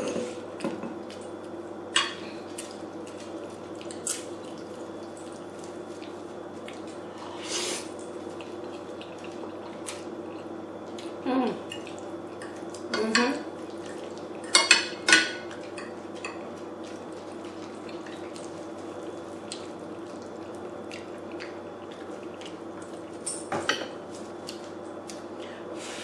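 A fork clinking and scraping on a plate during a meal of pasta Alfredo, in a handful of separate clinks a few seconds apart, over a steady low hum.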